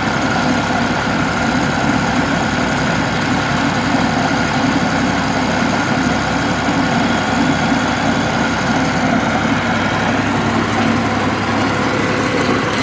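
Tractor diesel engine running steadily under load, driving a chain trencher whose digging chain cuts through the soil and throws it out.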